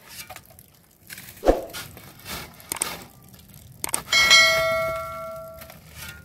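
A bright bell ding about four seconds in, ringing and fading over about a second and a half: the notification-bell sound effect of a subscribe-button animation. Before it, a thud and scraping of a shovel working snow.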